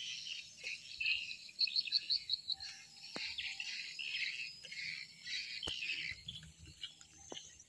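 Wild birds chirping and calling, with a quick run of high notes about two seconds in, over a steady high insect drone. A few sharp clicks sound through it.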